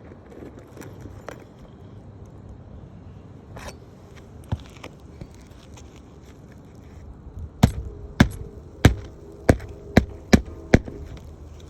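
Hammer driving a nail into a roof shingle: about seven sharp strikes, roughly two a second, each with a short ring, after some quieter scuffing.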